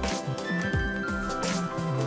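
Instrumental background music with a steady beat and a moving bass line.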